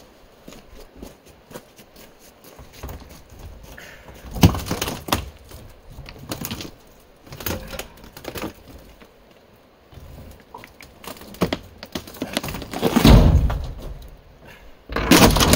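Wood-framed RV wall and roof panels cracking, creaking and knocking as they are pried up and shifted by hand on a dump trailer. The knocks come irregularly, the loudest a heavy thud about thirteen seconds in and another crash near the end.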